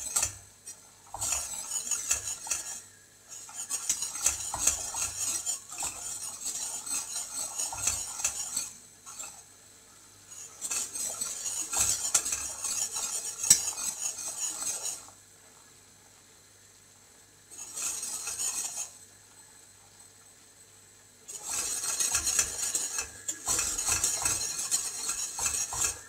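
A wire whisk scraping and clinking around a stainless steel saucepan, stirring flour into hot butter and oil as it toasts into a roux. It goes in several stretches broken by short pauses, the longest past the middle.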